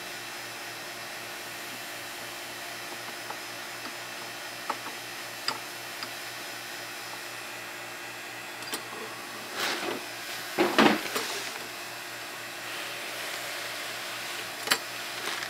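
Handling noise from a C4 Corvette pop-up headlight motor being worked free of its carrier: a few light clicks, then a short clatter of plastic and metal parts about ten seconds in, over a steady background hum.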